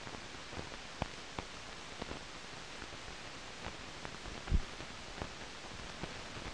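Steady hiss of an old newsreel film soundtrack, broken by scattered clicks and pops, with one louder low thump about four and a half seconds in.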